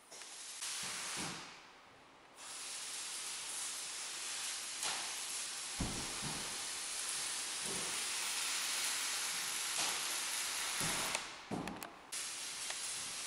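Electric arc welding: a steady, even noise from the arc that cuts out briefly about two seconds in, then runs for about nine seconds before breaking off near the end. A few low knocks sound underneath.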